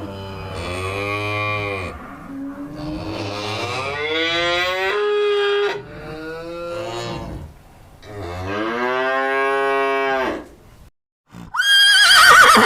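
Cattle mooing: about four long, drawn-out moos in a row, one rising in pitch as it goes. Near the end a short, high, quavering horse whinny comes in.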